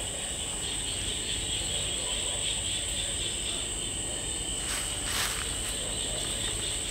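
Night chorus of crickets and other insects: a steady, high-pitched shrilling at two pitches. A couple of brief rustles come about five seconds in.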